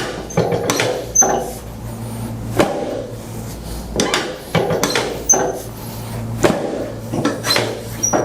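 A series of sharp, irregular clicks and knocks, about a dozen in eight seconds, from a chiropractic adjustment of the sacroiliac joints and lower back, over a steady low hum.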